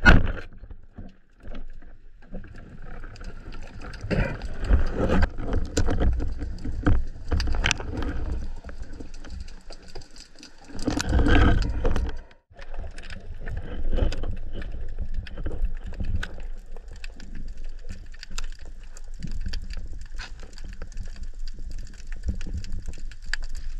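Water moving and bubbling against an underwater camera housing, with scattered clicks and knocks. There is a sharp click right at the start and a louder rushing burst about eleven seconds in.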